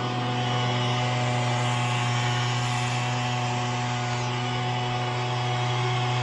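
Backpack mist duster blower's small two-stroke engine running steadily at high throttle, blowing granular fertilizer. The engine holds one unchanging pitch throughout.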